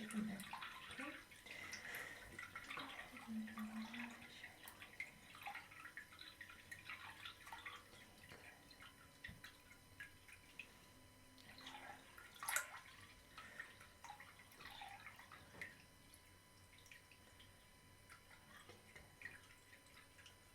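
Faint water dripping and trickling into a small sink as a cut is rinsed, with scattered drops throughout and one sharper splash or clink about twelve seconds in.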